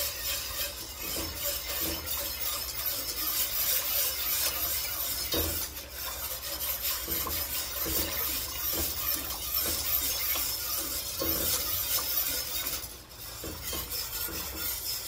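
Wire whisk stirring a thick ketchup-and-chili sauce in a stainless steel pot, the wires scraping and clinking against the pot in quick repeated strokes, with short pauses about six and thirteen seconds in.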